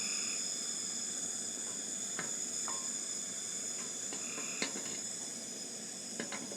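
A pot of water at the boil, giving a steady hiss, with a few light clicks and knocks. A thermostat is being heat-tested in it to see whether it opens.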